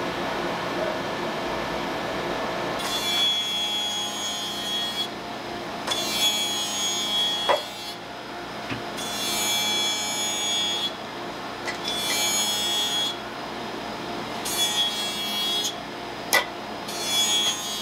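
Leather shoe being worked against a shoemaking machine in about six rasping passes of a second or two each, with a thin ringing tone in each pass, over the steady hum of running machinery; a couple of sharp clicks between passes.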